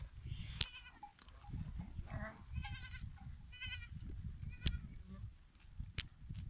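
Goats in a grazing flock bleating: several short, quavering bleats a second or so apart, over a low rumble, with a few sharp clicks.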